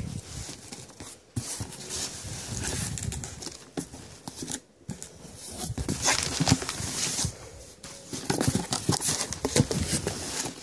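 Cardboard shipping box being opened by hand: flaps rubbing and scraping, with crumpled brown kraft packing paper rustling and crinkling near the end, in irregular bursts.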